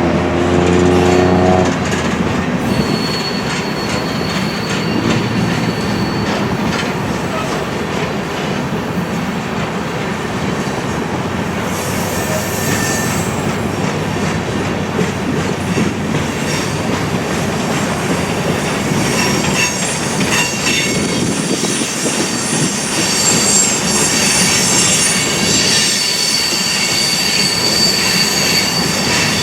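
BNSF freight train rolling past, with steel wheels squealing against the rails in thin high whines from about three seconds in, growing more insistent in the second half. A deep pitched drone at the start stops about two seconds in.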